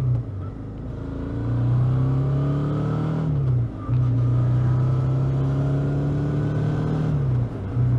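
Suzuki V-Strom 650's V-twin engine pulling under way, its note rising gently and then dipping briefly at each upshift, three times: about a third of a second in, near the middle, and near the end.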